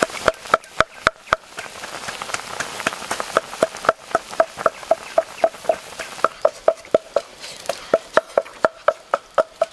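Oil sizzling as a whole duck and eggs deep-fry in a pan, with a rapid run of short pitched ticks, about four or five a second, and a few sharper pops near the start.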